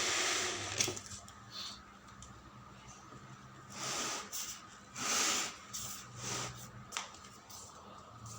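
Packaging being handled while unboxing a mini fridge. A steady hiss cuts off with a click about a second in. Then come a few short rustles and a sharp click near the end.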